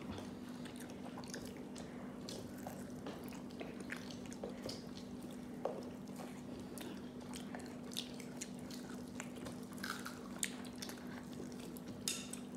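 Close-up chewing and biting of KFC fried chicken: irregular small wet clicks and crackles of a mouth eating. A steady low hum runs underneath.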